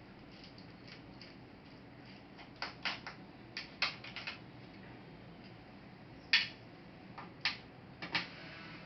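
Irregular sharp clicks and taps of small hard plastic and metal laptop parts and tools being handled during disassembly. They come in small clusters, and the loudest click falls a little past the middle.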